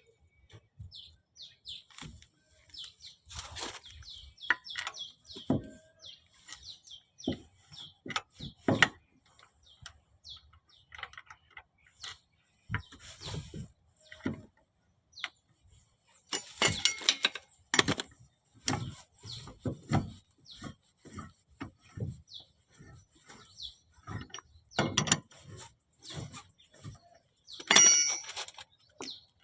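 Scattered, irregular clicks, knocks and clinks of hand tools and metal parts being handled on a car's front wheel assembly, with a few denser clusters of knocks about 17, 25 and 28 seconds in.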